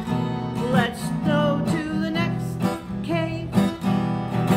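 Acoustic guitar strummed in a steady rhythm, with a few short gliding vocal sounds over it.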